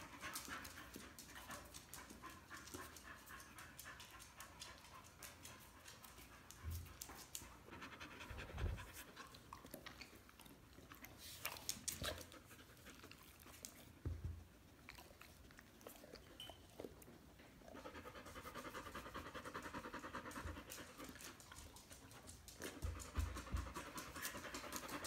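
A dog panting steadily, with a few soft thumps now and then.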